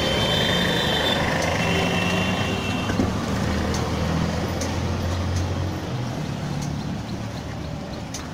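Road traffic noise dominated by a large vehicle's engine running steadily, with a high squeal or whine in the first couple of seconds.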